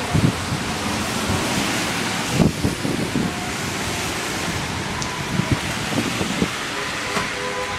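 Steady noisy wash of wind and falling snow and sleet on a city street with traffic, with wind gusting on the phone's microphone in irregular low thumps.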